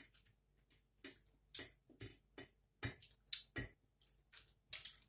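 Close-miked chewing: a run of short, wet smacks and crunches of a mouth eating food, about two a second, the loudest a little past the middle.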